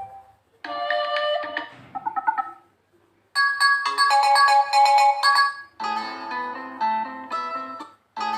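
Lava Z6 phone's built-in ringtones previewing one after another: three short, different melodies, each cut off after about two seconds as the next is picked, and a fourth starting near the end.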